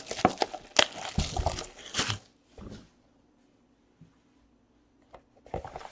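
Foil wrapper of a pack of trading cards torn open and crinkled for about two seconds, then near quiet with a few faint clicks.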